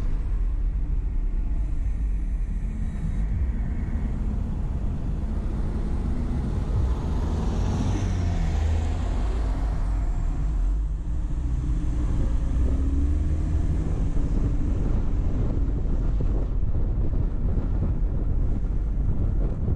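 Steady low rumble of tyres and engine from a car being driven, with a brighter swish that rises and fades about eight seconds in.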